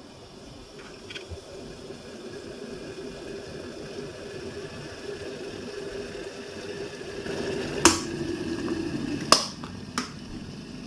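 Electric kettle heating water: a hissing rumble that slowly grows louder as it approaches the boil. Three sharp clicks come near the end.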